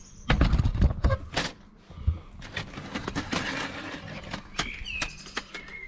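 Handling noise as a phone camera is moved and set down over a wooden table: heavy bumps and knocks in the first second or so, then light clicks and rustling. A bird chirps briefly a few times near the end.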